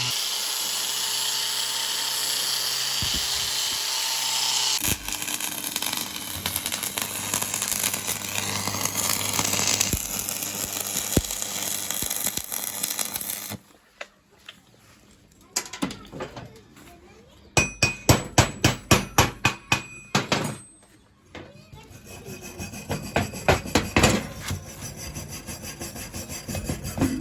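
A power tool running steadily for about thirteen seconds, then cutting off. After a short pause come two runs of quick, sharp metal strokes, about four a second, like a metal part being scrubbed with a wire brush or tapped.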